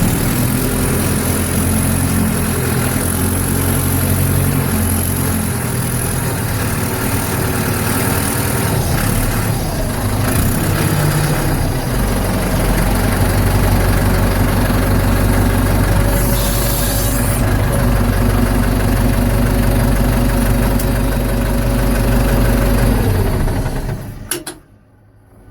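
Ford 755B backhoe's diesel engine running steadily while the machine works, its note shifting a few times, then cutting off abruptly near the end.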